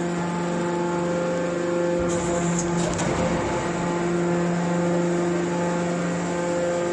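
Hydraulic scrap metal baler/shear running with a steady machine hum, with brief clatter about two to three seconds in.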